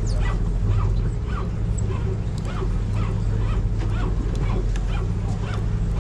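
Boat engine running with a steady low hum. Over it come short high squeaks, about two a second.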